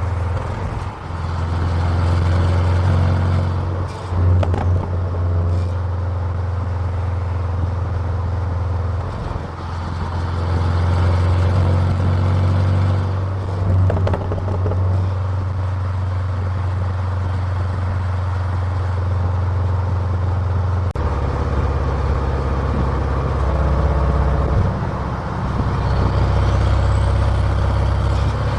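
Car exhaust heard close to the tailpipe, the engine running with a steady low drone that dips briefly a few times and settles into a different pitch about two-thirds of the way through.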